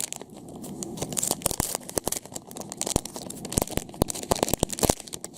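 A small mystery-pack bag being torn open and crinkled by hand, with irregular sharp crackles throughout.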